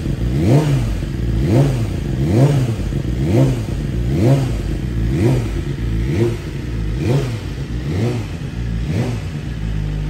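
2023 BMW S1000RR's inline-four engine, breathing through Akrapovic titanium headers on the stock sport exhaust, being blipped on the throttle about once a second, about ten times in a row. Each blip rises and falls in pitch, and near the end the engine settles back to a steady idle.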